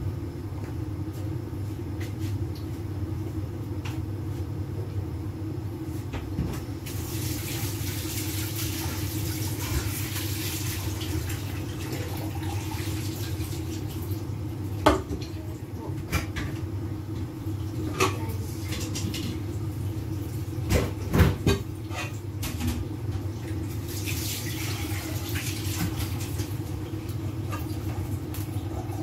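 Lidded pot of soup boiling on a gas burner: a steady low hum with bubbling. The hiss swells twice, and a few sharp clicks come in the middle.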